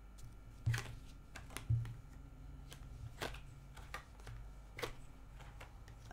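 Tarot cards being handled and laid down on a table: a handful of scattered card clicks and taps.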